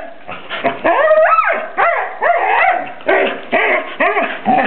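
Excited shepherd-mix dog barking and yelping in a rapid string of short, high calls that rise and fall in pitch, about three a second, with one longer rising yelp about a second in.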